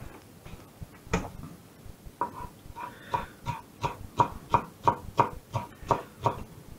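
A spoon clinking repeatedly against a bowl while stirring satay sauce: one click about a second in, then a steady run of about three light clicks a second, each with a short ring.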